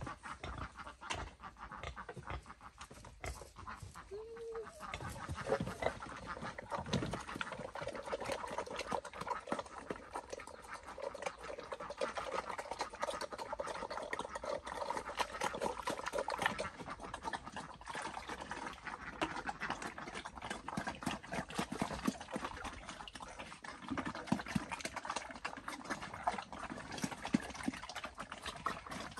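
Pigs eating wet feed from a trough: continuous slurping and chomping, with feed tipped in from a bucket.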